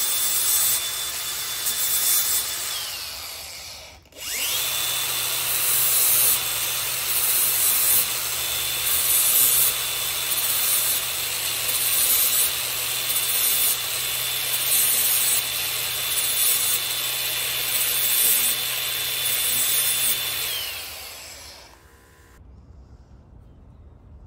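Cordless DeWalt angle grinder running with a steady high whine while its disc grinds the cutter teeth of a hedge trimmer blade, the grinding noise swelling and fading about once a second as each tooth is dressed. It is switched off about three seconds in and winds down, starts again a second later with a rising whine, then is switched off near the end and spins down.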